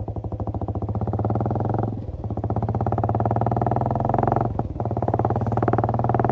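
Royal Enfield Classic 350 single-cylinder engine running through a very loud K-Indori aftermarket silencer, a fast, even train of exhaust pulses. The sound drops off briefly twice, about two seconds in and again around four and a half seconds, then picks up again.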